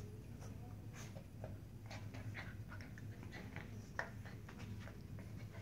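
Shiba Inu puppies play-wrestling on a rug: faint scuffling and small puppy noises, many short sounds scattered through, with one sharper knock about four seconds in.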